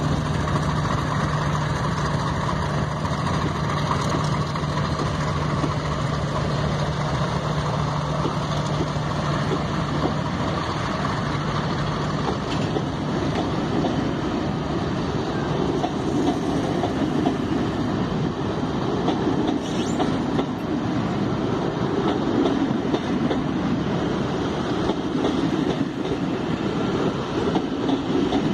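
Two Class 50 diesel locomotives pulling a train away, their English Electric 16-cylinder engines running with a steady drone that fades out about twelve seconds in. After that the coaches roll past with a growing rumble and clatter of wheels on the rails.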